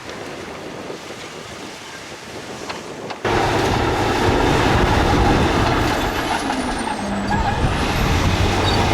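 Diesel engines of heavy earthmoving machinery, dump trucks and a bulldozer, running under work. A quieter stretch of outdoor noise gives way abruptly, about three seconds in, to a loud, steady engine din with a low hum.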